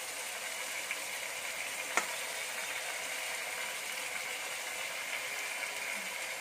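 Marinated mutton and onions sizzling steadily in an open aluminium pressure cooker, with one sharp click about two seconds in.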